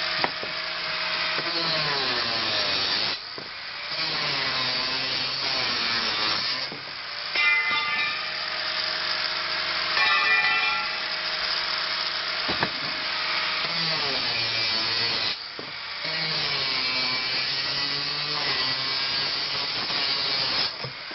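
Angle grinder cutting steel off brass scrap: the disc's whine sinks in pitch as it bites under load and climbs again when it eases off, over several cuts with brief lulls between them.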